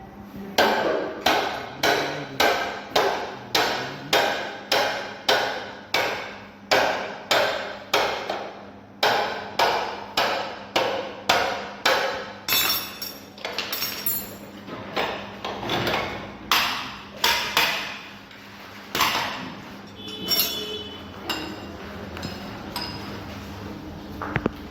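Hammer blows on metal, a steady run of about two strikes a second, then slower and more irregular after about twelve seconds and thinning out near the end: a mechanic knocking loose the rear wheel of a Bajaj Discover 135 motorcycle to take it off.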